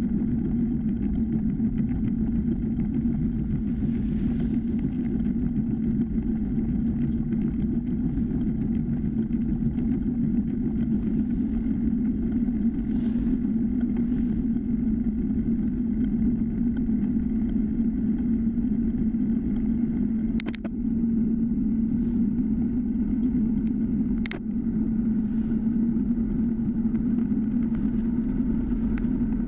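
Steady wind and tyre rumble from a time-trial bicycle ridden at speed on asphalt, a constant low hum. Two sharp clicks past the middle, about four seconds apart.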